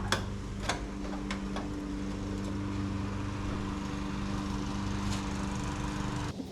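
Small petrol engine of yard equipment running steadily at a constant speed, with a few sharp clicks in the first couple of seconds; the sound cuts off abruptly near the end.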